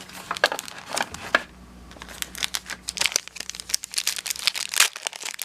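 Crinkling and tearing of a plastic trading-card pack wrapper as a pack is opened, in many sharp crackles.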